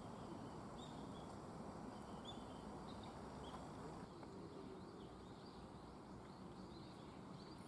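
Quiet outdoor ambience: a steady low hiss with scattered short, high chirps of small birds calling.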